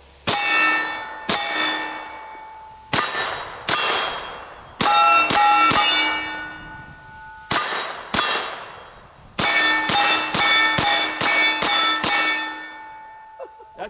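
Chrome Auto-Ordnance Thompson in .45 ACP firing five strings of rapid shots at a steel target, the hits setting the steel plate ringing with a clear clang that dies away between strings. The last string is the longest, at about eight shots.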